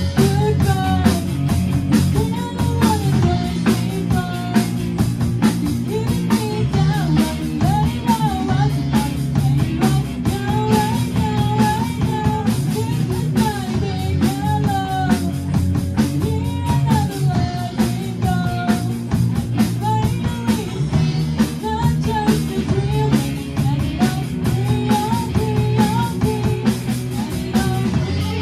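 Rock band playing live: a girl singing lead over electric guitars, bass and a drum kit.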